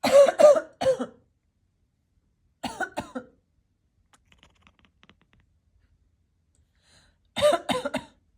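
A cat coughing and hacking in three short bouts of rapid, staccato hacks, each bout about a second long, with a few seconds' pause between them. The quick, clipped rhythm of each bout is what sounds like typing.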